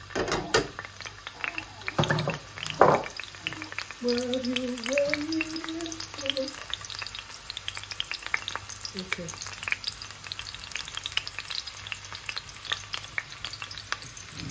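Sliced onions sizzling and crackling in hot rapeseed oil in a frying pan, with a few louder knocks in the first three seconds.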